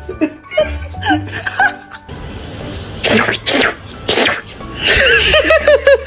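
Background music, broken near the middle by three short, loud, noisy bursts about half a second apart.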